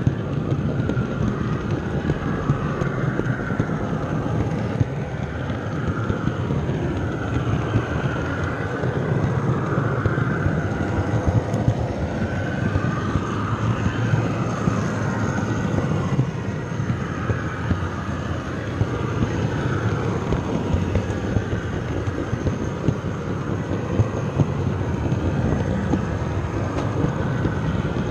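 Model train running along the track, picked up close from a camera car in the train: a steady rumble of wheels on the rails with many small clicks and a wavering whine.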